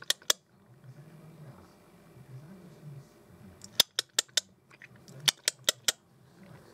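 Two quick runs of about four sharp clicks each, roughly a second and a half apart, over a faint low rumble.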